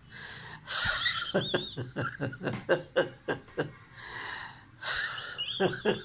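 A man laughing: two bouts of quick, rhythmic ha-ha pulses, with breathy gasps between them.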